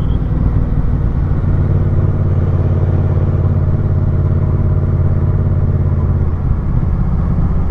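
Motorcycle engine running at a steady cruising speed while riding, its note shifting slightly about six seconds in.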